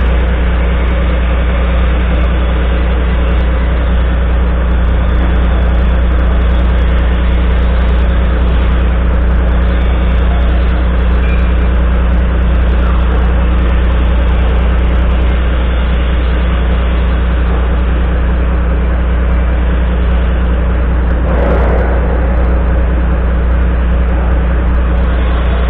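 Volvo FMX 440's 13-litre straight-six diesel engine idling steadily, a deep even hum heard close to its upright exhaust stack.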